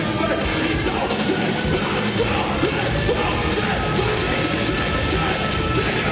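Heavy metal band playing live: distorted electric guitars and drums in a loud, dense, unbroken wall of sound.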